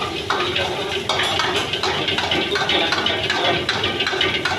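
Stir-frying in a wok over a restaurant gas burner: fried Manchurian balls and vegetables sizzle while a metal ladle scrapes and knocks against the wok about every half second, over the steady rush of the burner.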